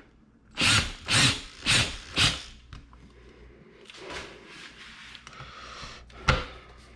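Power drill driving a fastener into the wall in four short trigger pulses, about half a second apart, then a single sharp knock near the end.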